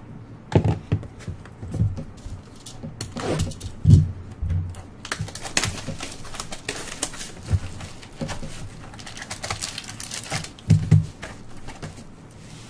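Trading cards and their packaging being handled on a table: rustling of wrappers and sleeves, sliding cards, and scattered light taps and thumps, with a denser stretch of rustling in the middle.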